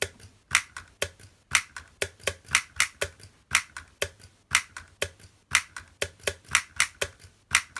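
Solenoid-driven toys playing a looped MIDI rhythm: a clapping toy's inflatable hands snapping together and a robot's stick striking a small drum. The result is sharp taps at about four a second, with a short pause now and then as the pattern repeats.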